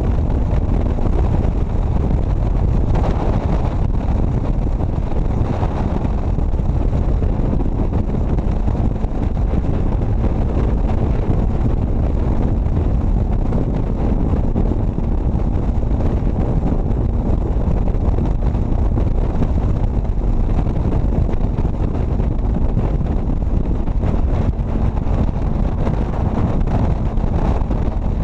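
Motorcycle at steady highway speed: a heavy rush of wind on the microphone over the engine and road noise, with a faint steady hum and no change in pace.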